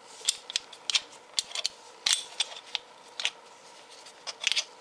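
Irregular sharp clicks and taps of a WE G18C airsoft pistol's metal slide and barrel being handled while it is stripped down, as the barrel is worked out of the slide. There are about a dozen clicks, some in quick pairs and a close cluster near the end.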